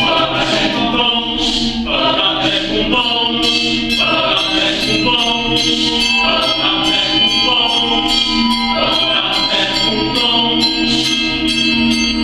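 Mixed choir singing in Portuguese, several voice parts in harmony, over a steady beat of sharp, hissing accents.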